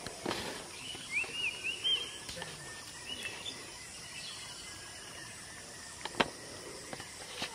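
Outdoor ambience with a steady background hiss. A bird calls in two short runs of quick, arched chirps in the first few seconds. A sharp click comes near the end.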